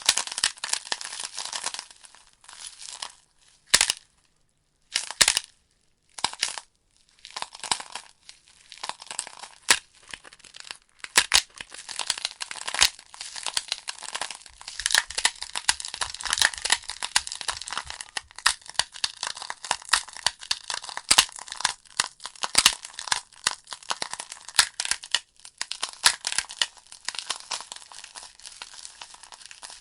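Burning logs in a fireplace crackling and popping: a dense run of sharp snaps over a steady crackle, with a brief lull about four to seven seconds in.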